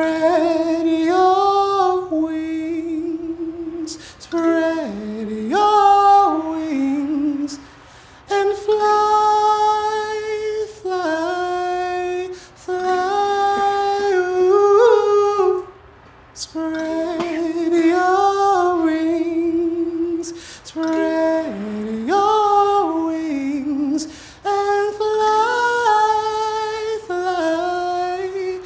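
Solo voice singing a slow wordless melody in short phrases of a few seconds each, gliding and stepping between notes, with brief pauses for breath between phrases.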